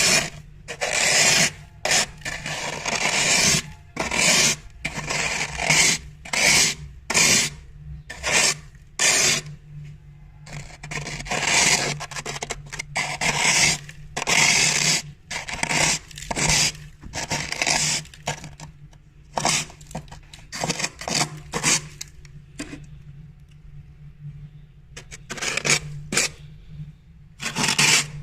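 Freezer frost being scraped with the edge of a glass: repeated crunchy, rasping scraping strokes, about one or two a second, with a quieter pause of a few seconds late on before the scraping resumes.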